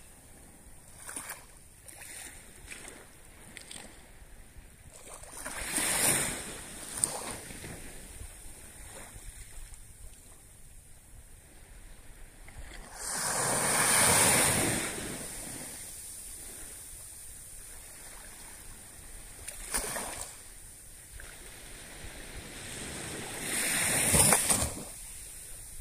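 Small waves from a calm sea washing up onto a sandy beach: a rush of surf swells and fades every few seconds, the biggest about halfway through and near the end.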